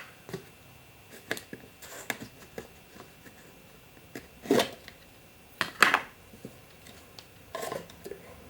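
Scattered clicks and knocks from handling a bearing-cleaning washer container, with two louder knocks in the middle and a short rustle near the end.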